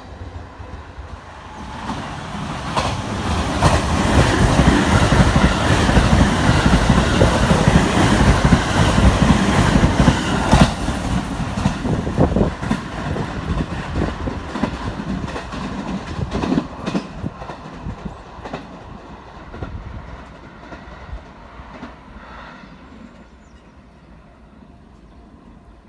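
Electric train running past on the Hanwa Line, its wheels clicking over the rail joints. It grows loud within a few seconds, stays loud for several seconds, then fades slowly away.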